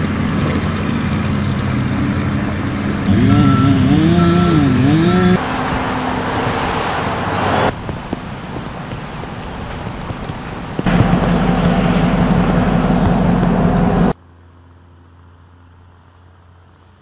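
Engines running in a series of short sections that cut off abruptly every few seconds. About three seconds in, one engine's pitch rises and falls under an intermittent high beep. The sound drops to a faint low hum about three seconds before the end.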